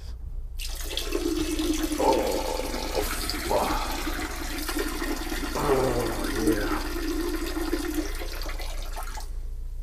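A stream of urine splashing into the water of a toilet bowl, running steadily for about nine seconds, then stopping with a few last drips.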